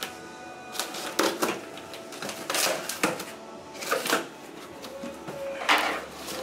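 Packaging being handled and torn open, about five short rustling, scraping bursts, over faint background music.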